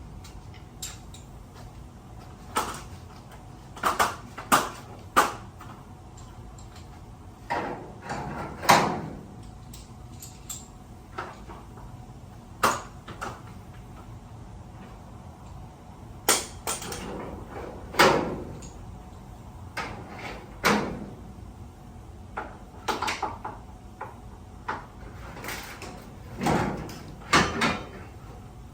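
A damaged sectional garage door being handled: an irregular series of knocks, clanks and rattles of metal door panels and hardware, some ringing briefly.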